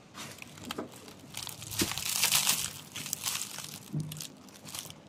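Dry leaves and plant litter crackling and crunching close to the microphone, with scattered sharp clicks, loudest around the middle.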